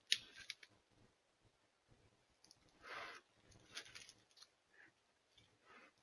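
Faint rustling and crackling of dry grass and leaf litter under an American black bear's feet as it walks, with a longer rustle about three seconds in.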